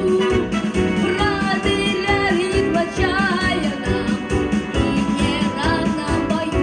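A song: a sung melody over an instrumental backing track with a steady beat.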